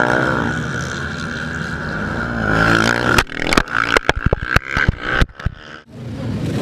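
Dirt-track racing motorcycle engines running hard. About three seconds in, a quick irregular string of sharp cracks and knocks begins and lasts for a few seconds.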